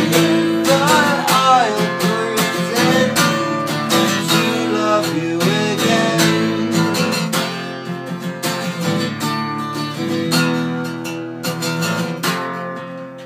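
Acoustic guitar strummed with a man singing over it, the voice mostly in the first half; the playing gets softer toward the end.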